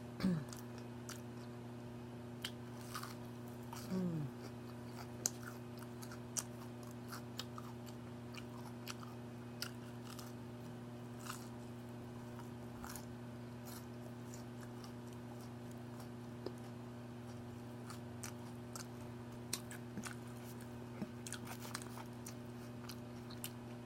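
Close-miked chewing and biting of onion rings and cheeseburgers, with scattered small crunches and wet mouth clicks over a steady low hum. A short vocal sound comes just after the start and again about four seconds in.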